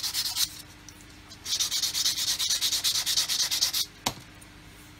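Sanding stick worked rapidly back and forth on a styrene plastic model wing spar, in two spells of quick strokes with a pause of about a second between, taking material off the spar's corner so it will sit in the wing's groove. A single short knock just after the sanding stops.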